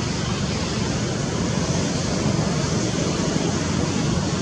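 Steady rushing background noise with a low rumble underneath, even in level throughout, with no distinct calls, knocks or other events standing out.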